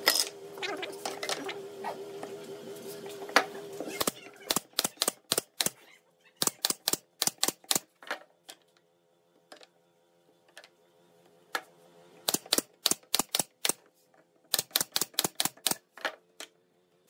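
Pine boards knocking as they are laid on a wooden workbench, then a pneumatic nail gun firing in quick runs of sharp clacks, about four or five a second, with pauses between the runs.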